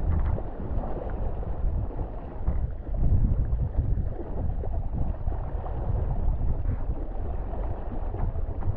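Wind buffeting the microphone on a windfoil rig riding on foil, a low rumble that swells and dips, mixed with the rush of water spray off the board.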